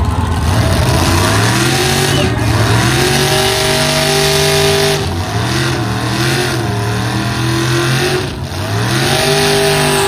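Monster truck engine revving hard several times, the pitch climbing and holding high, dropping briefly and climbing again.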